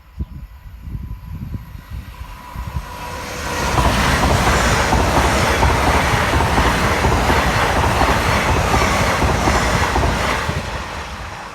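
An LNER Class 801 Azuma electric multiple unit passing through the level crossing. A rumble builds over the first few seconds, becomes a loud, steady rush of wheels and air about four seconds in, and starts to fade near the end.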